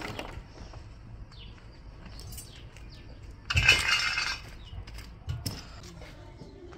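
Metal tongs scraping and clinking through charcoal in a fire pit, with one loud rattling clatter of coals lasting about a second, about three and a half seconds in.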